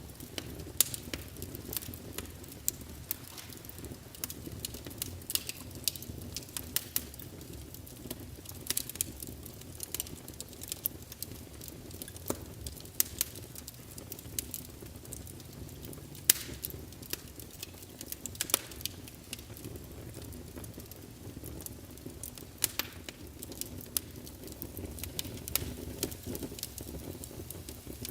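Wood fire crackling in a fireplace: a steady low rumble of flames with irregular sharp pops and snaps of burning logs.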